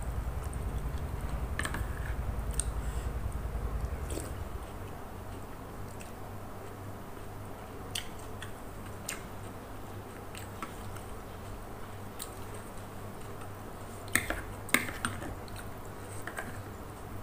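A person chewing and eating noodle soup close to the microphone, with sharp clicks of a metal spoon and fork against a plastic bowl, the loudest a couple of seconds before the end. A low steady hum fades out about four seconds in.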